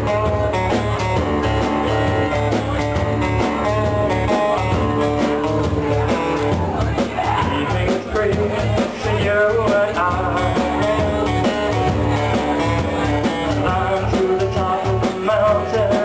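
Live band playing a blues-rock song: a man singing over strummed acoustic guitar, electric guitar and a drum kit keeping a steady beat.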